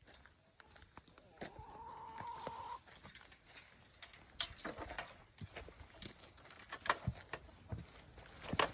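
Chickens clucking, one drawn-out call near the start, amid scattered footsteps and light clicks and clinks.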